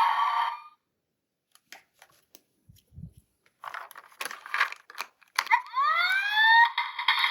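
Toy packaging being handled: small clicks, then plastic crinkling and tearing. Near the end a rising electronic swept tone comes in.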